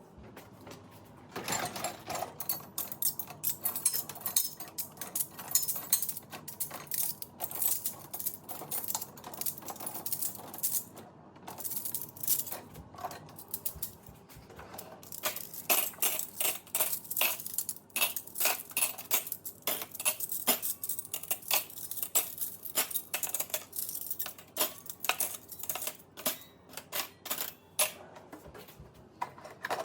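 Dishes, glasses and cutlery clinking and clattering as a dishwasher is unloaded: a quick, uneven run of sharp clinks and knocks, with brief lulls.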